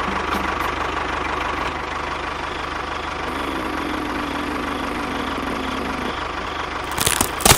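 Mini tractor engine idling steadily with a rapid low chug. Sharp clattering knocks come near the end.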